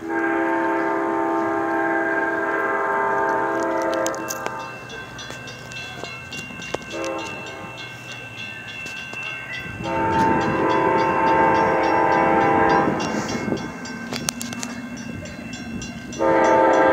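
Amtrak locomotive air horn sounding for the station as the train approaches. It gives a long blast, then a brief one, then another long blast over a growing rumble of the train. A further blast starts near the end.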